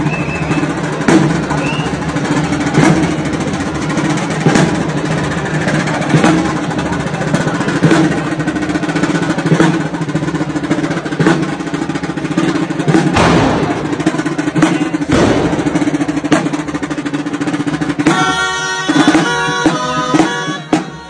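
A street wind band of clarinets and trumpets plays a dance tune over a steady drum beat that strikes roughly every second and a half. Near the end the wind instruments come through much louder and clearer.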